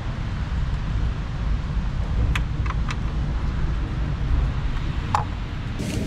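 Steady low rumble of wind buffeting the microphone, with a few light clicks from the old spark plug and its socket being handled: three about two seconds in and one near the end.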